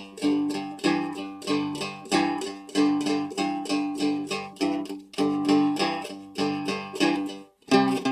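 Seagull Merlin, a four-string dulcimer-style instrument tuned G-D-G-G, strummed in a simple blues riff in G. A steady run of chord strums and droning open strings breaks off briefly near the end, then resumes.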